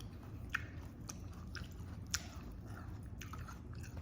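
A person chewing and biting food, with a series of short crisp crunches, the loudest about halfway through.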